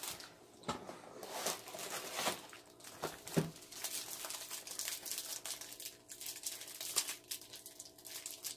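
Plastic wrapper of a snack cake crinkling in irregular crackles as it is handled and pulled at to tear it open.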